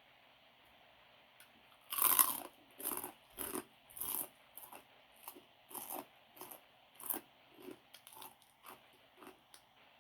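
A person chewing a mouthful of crunchy food close to the microphone, here a Thai pounded noodle salad with pork cracklings and cabbage. A loud bite-crunch comes about two seconds in, then crunchy chews about twice a second that grow softer.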